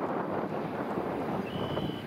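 Wind buffeting the microphone over the faint, steady running of a distant EMD F-unit diesel locomotive approaching. A short, high, steady whistle comes in near the end.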